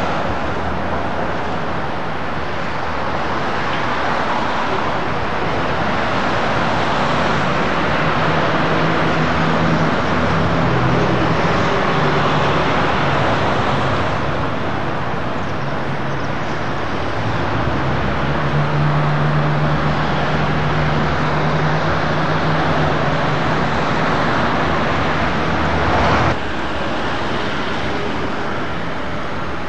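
Street traffic noise: car and van engines running and tyres on the road, with a low engine hum that shifts in pitch. The sound drops abruptly in level near the end.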